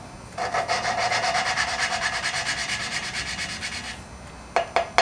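Valve being hand-lapped into its seat in a Chevy 250 inline-six cylinder head: the lapping tool is spun back and forth between the palms, and the coarse-grit lapping compound grinds with a rapid, pulsing gritty rasp for about three and a half seconds. Three sharp clicks follow near the end.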